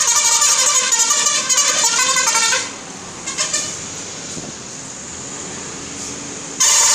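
Indonesian 'telolet' bus horn playing a quick tune of stepping notes that stops about two and a half seconds in. A short toot follows, then a few seconds of quieter street noise, and a loud horn blast starts near the end.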